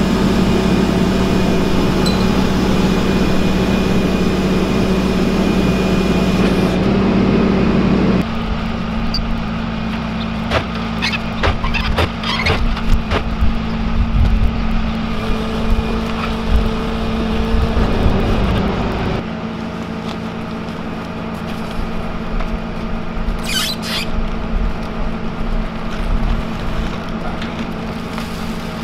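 Flatbed tow truck's engine running steadily, louder for the first eight seconds or so, then quieter, and quieter again about 19 seconds in. Between about 10 and 14 seconds in comes a run of metal clanks and rattles from the wrapped machine's casters on the steel deck, with a few more knocks a little before the end.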